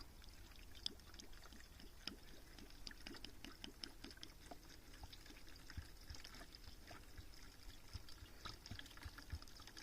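Faint pouring and trickling of liquid bee feed into a hive feeder, with small scattered clicks and knocks.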